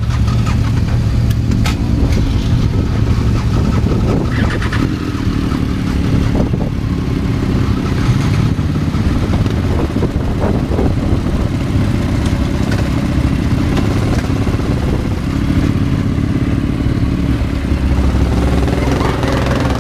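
Motorcycle engine running loud and fairly steady, with a few short clatters.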